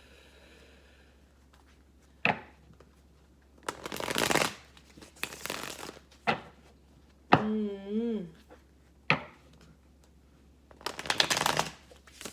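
Tarot cards shuffled by hand in several short bursts, with a few sharp clicks between them. A brief hummed voice sound comes about seven seconds in.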